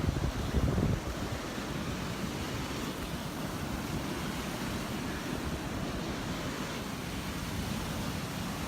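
Rough Gulf surf breaking on the beach, a steady rush of waves. Wind buffets the microphone during the first second.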